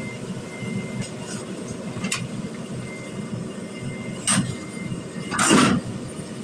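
Hydraulic crawler excavator running with a steady low engine rumble as its tracks climb steel loading ramps, with a few sharp knocks and a louder rasping burst near the end.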